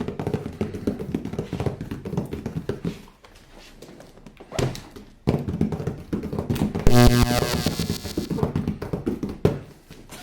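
Taps, knocks and thunks of hands handling toy packaging and plastic figures, with music playing. About seven seconds in comes the loudest sound, a pitched tone lasting about a second and a half.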